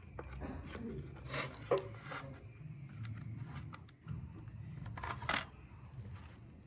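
Hands handling electrical cable and plastic wiring fittings on a board: scattered clicks, taps and rustles, the loudest clatter about five seconds in, over a low steady hum.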